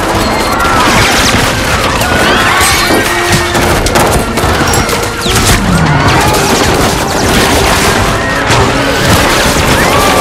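Film action sound mix: sustained rapid automatic gunfire from an attacking aircraft strafing a street, mixed with booms and crashing impacts, over a music score.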